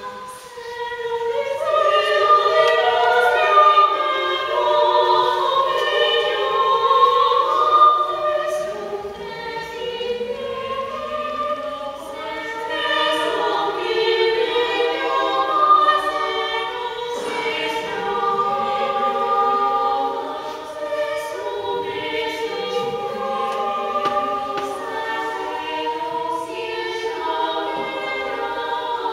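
Seven-voice women's chamber choir singing a cappella in several parts, the voices moving from note to note together.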